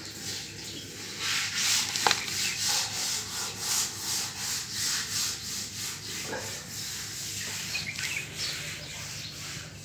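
Hand scrubbing and scraping inside an emptied water tank during cleaning: a run of rhythmic scratchy strokes, about two or three a second, with a sharp click about two seconds in.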